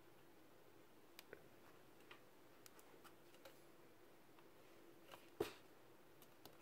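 Faint small clicks and taps of a hand fitting a flexible 3D-printed cap over an e-bike's rear axle nut, with one sharper click about five seconds in, over a faint steady hum.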